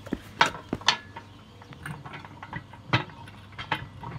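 Sharp metallic clicks and knocks as a steel pin is worked into the leg socket of a Harbor Freight 2-ton engine hoist, steel rattling against the square steel tubing. A quick cluster of clicks comes in the first second, then two more knocks a few seconds later.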